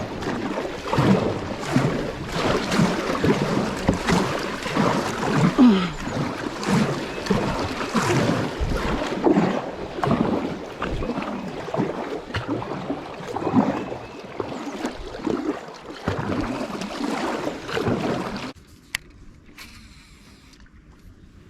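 Water splashing and rushing against a kayak in a swift creek current, in irregular surges, cutting off abruptly about eighteen seconds in and leaving a faint hush.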